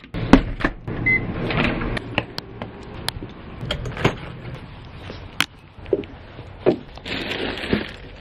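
A glass storm door pushed open and swinging shut, then a fence gate, with a string of sharp clicks and knocks from latches and handling, and footsteps near the end.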